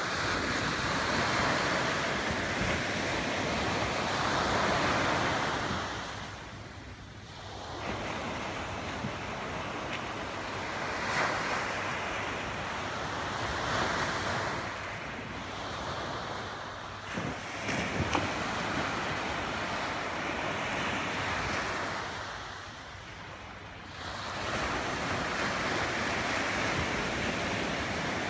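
Small waves breaking and washing up onto a sandy beach, the surf swelling and fading in loudness, with some wind on the microphone.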